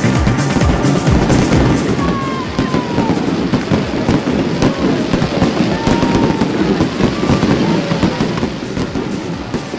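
New Year's fireworks going off: a dense run of bangs and crackling, with a few short whistling glides.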